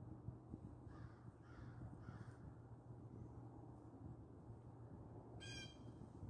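Near-silent woods with a bird calling: three faint far-off calls in quick succession a second or two in, then one short, clearer call near the end.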